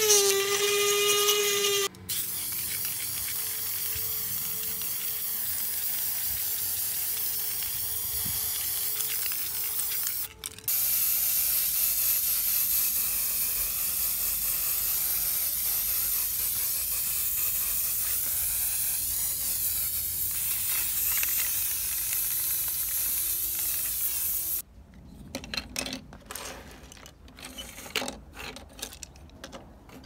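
Paint spraying in long, steady spells of hiss, with a short break about ten seconds in. It opens with a cordless rotary tool whining against a rusty metal plate, cut off about two seconds in, and ends with light clicks and taps of small plastic parts.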